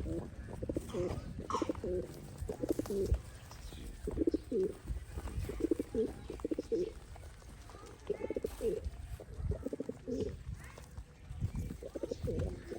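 Pigeons cooing repeatedly, low throaty pulsing coos in short groups one after another.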